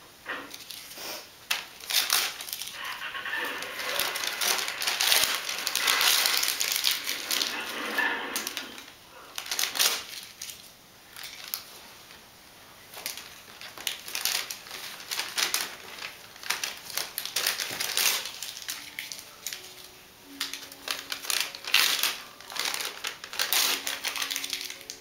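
Christmas wrapping and tissue paper crinkling and rustling as a kitten pounces on it and tramples it, with many sharp clicks and taps throughout. The rustling is densest and loudest in the first third.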